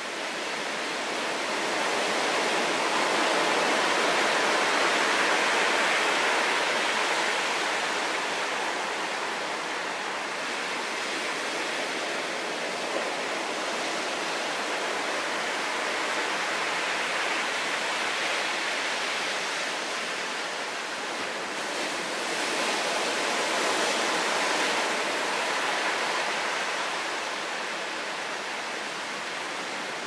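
Heavy typhoon surf: big waves breaking in a continuous rushing wash onto the beach and against the rocks, swelling louder a few seconds in and again about three-quarters through.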